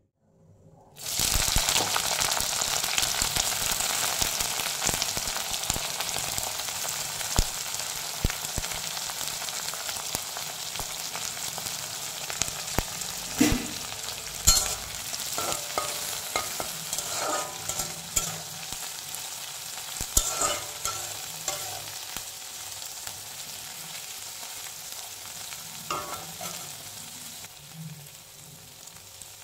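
Small dried fish and chilies sizzling in hot oil in a metal wok. The sizzle starts suddenly about a second in and slowly dies down, with occasional scrapes and taps of a spatula stirring against the pan.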